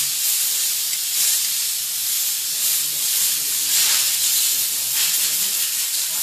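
Steady, loud hiss, strongest in the high range, with faint voices behind it.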